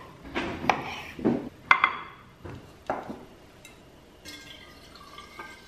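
Kitchen handling: about six sharp knocks and clinks in the first three seconds, from a glass bottle and utensils set against a counter. Faint ringing tones follow near the end.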